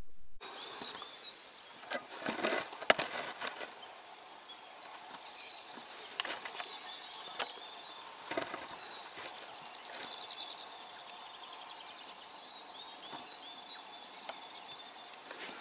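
Several small birds singing in the bush: quick chirps and rapid descending trills repeating throughout. A few sharp clicks and knocks break in, the loudest about three seconds in.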